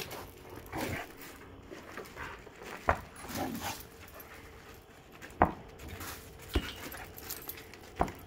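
Dogs playing with a tetherball: a few sharp thuds as they hit the ball, the loudest about three seconds and five and a half seconds in, with quieter dog sounds between.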